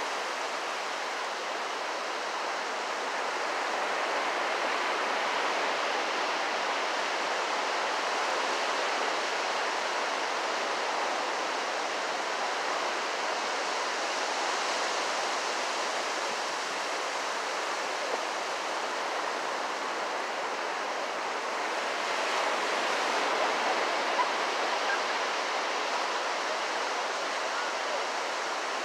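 Ocean surf breaking and washing ashore, a steady rushing hiss that swells a little about 22 seconds in.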